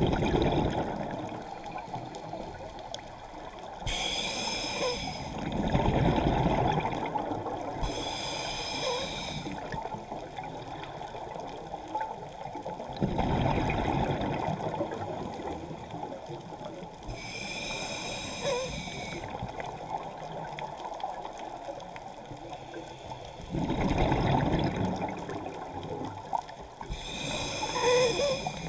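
Scuba regulator breathing underwater, about four slow breath cycles. Each one is a short hissing inhale through the regulator, followed by a longer low rush of exhaled bubbles.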